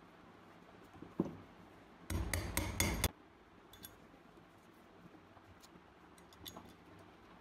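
Small steel pistol parts and tools clinking and rattling during reassembly of a Beretta Model 1934 frame: a single knock about a second in, a second of dense metallic clatter, then a few light clicks.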